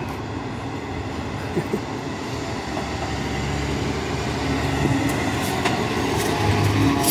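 KAMAZ street-washing truck's diesel engine running as it drives slowly past at close range, growing louder as it nears, while its front nozzles spray water onto the road with a steady hiss.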